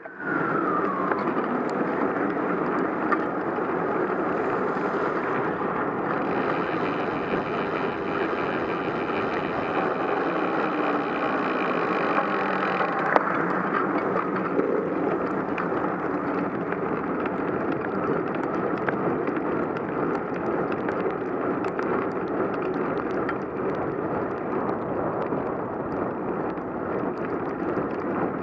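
Steady rushing noise of a bicycle ride on wet roads in the rain: tyre hiss and wind. A brief high whine falls away in the first second.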